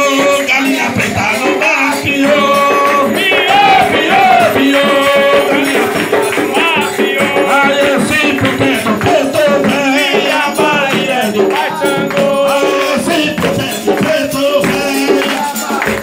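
Umbanda ritual chant in homage to Xangô: a man sings the lead into a microphone while others sing along, over steady hand clapping and rattle percussion.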